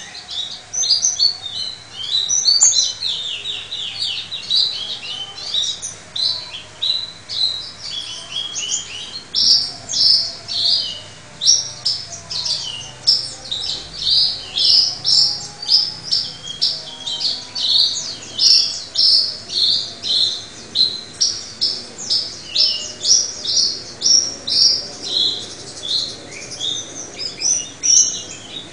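Caged songbird singing without pause: a fast, varied stream of sharp, high chirps and short trilled phrases.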